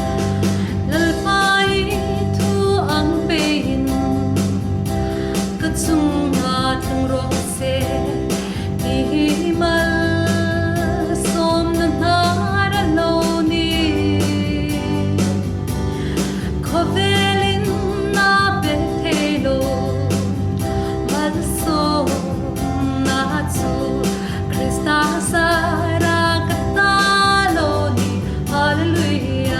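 A singer performing a hymn with guitar and band accompaniment, with a steady beat.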